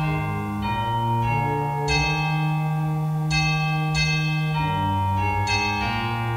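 Instrumental closing music: a slow melody of chime-like notes, a new note every half second or so, over held low notes.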